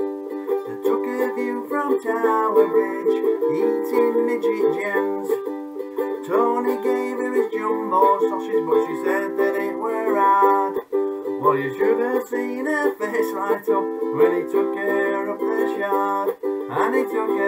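Ukulele strummed in a steady rhythm, accompanying a man singing a song.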